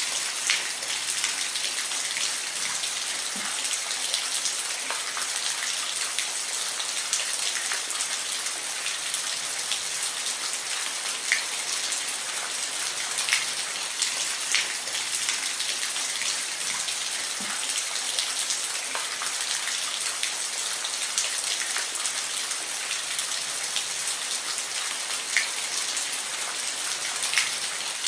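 Steady rain falling, an even hiss with individual drops ticking sharply on a hard surface every second or two.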